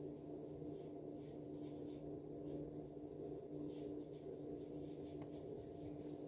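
Steady low hum with a constant background noise, and faint scattered light ticks.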